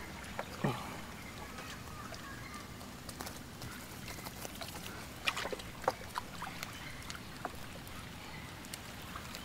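Gillnet being hauled and cleared of fish in a canoe: scattered knocks, splashes and handling noises over a steady hiss, with a short burst of clattering about five seconds in.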